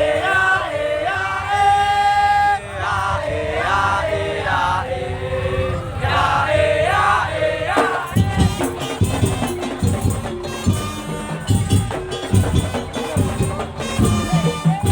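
Madurese tong-tong (daul) ensemble playing live: a wavering melody line over a light beat, then about eight seconds in the drums and percussion come in at full, fast and dense.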